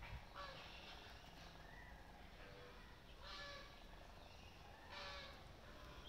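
Flamingos honking faintly: about four short calls, each well under a second, spread through.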